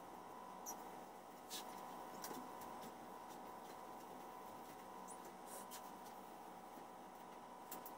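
Faint cloth wiping over a glass display counter, with a handful of short, light squeaks and taps scattered through, over a steady faint hum.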